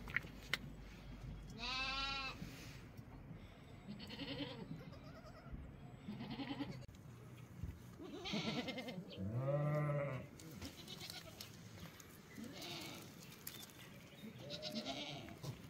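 Young goats bleating: about seven separate calls a couple of seconds apart, the loudest about ten seconds in.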